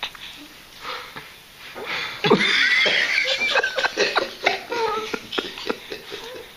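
Young children laughing and squealing, with a loud, high-pitched squeal about two seconds in.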